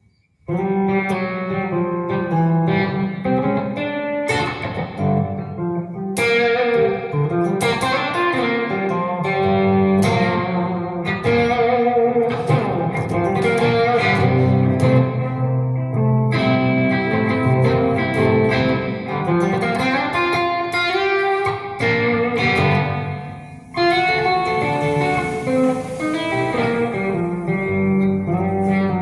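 Guitar music with many plucked notes and chords, starting about half a second in and dipping briefly a little before the end.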